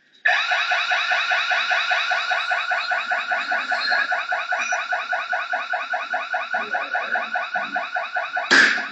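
An electronic alarm starts suddenly and sounds in fast, evenly repeating pitched pulses. Near the end comes a loud crash as a hammer strikes the glass display counter.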